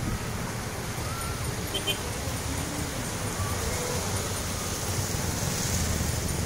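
Surf washing on the shore and wind buffeting the microphone: a steady rumble with a hiss of breaking water that swells about five seconds in.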